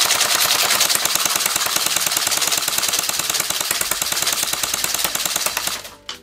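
Airsoft gun firing one long, rapid, continuous burst of BBs, the shots coming too fast to count, stopping abruptly about six seconds in.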